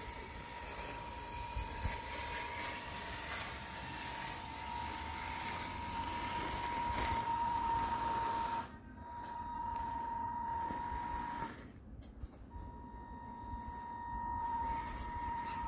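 Electric drive of a Tamiya Scania 6x4 radio-controlled truck running as it ploughs snow: a steady high whine over a rough hiss, cutting out twice, briefly about nine seconds in and for about a second near twelve seconds.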